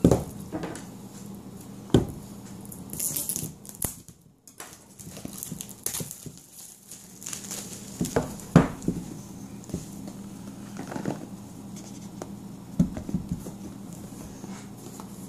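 A cardboard smartphone box being handled on a wooden table: several sharp knocks as it is set down and moved, with scratching and crinkling as the packaging is worked at to get it open.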